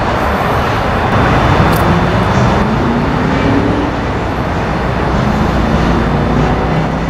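Steady, loud road vehicle and traffic noise, with a low hum that rises in pitch for a few seconds.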